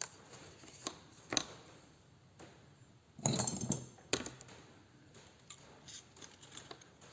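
Small metal tools and parts being handled on a bench: a few sharp clicks, then a short clatter of metal on metal a little past halfway, and light ticks.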